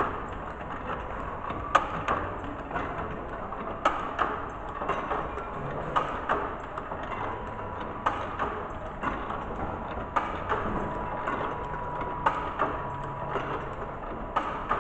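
Butterfly-pleat curtain machine running, with irregular clacks and knocks over a steady mechanical hum and a thin steady whine.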